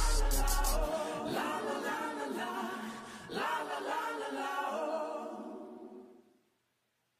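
Background music ending: the beat and bass drop out about a second in, leaving sung vocal harmonies that fade out near the end, followed by silence.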